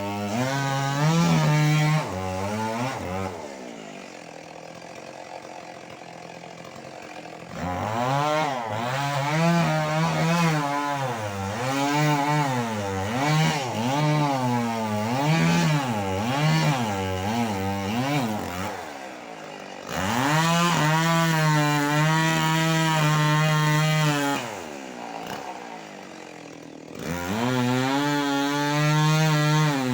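Stihl MS 381 two-stroke chainsaw run hard with its pitch rising and falling repeatedly, falling back to idle twice, around four seconds in and again near the end.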